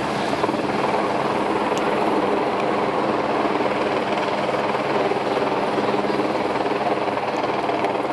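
A loud, steady engine drone with a low hum.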